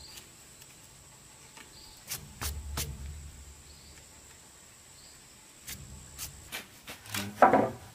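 Fingers clearing wood chips from a freshly chiselled mortise in a timber beam and brushing sawdust off the wood: light scrapes and small clicks, with a sharper wooden knock near the end.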